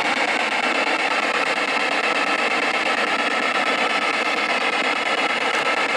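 P-SB7 spirit box scanning radio stations at 100 milliseconds on forward sweep: a steady hiss of radio static from its small speaker.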